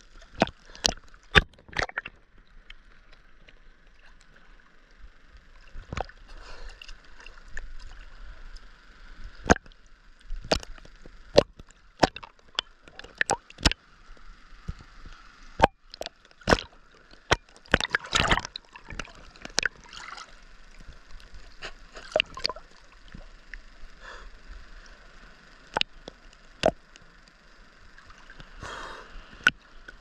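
Sea water sloshing and splashing at a camera held at the water's surface, with frequent sharp, irregular slaps as small waves hit it.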